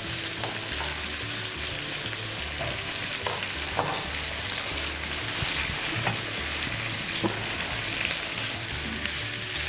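Sliced potato, sweet potato, carrot and onion sizzling steadily in hot oil in a frying pan as they are sautéed, with a few light clicks as they are moved about.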